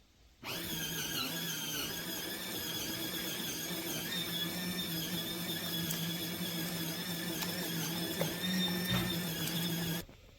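Small electric motor of a portable mini washing machine running with a steady hum. It starts suddenly and cuts off near the end.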